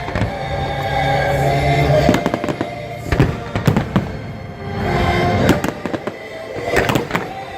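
Fireworks display bursting in a string of sharp bangs and crackles over loud, sustained show music.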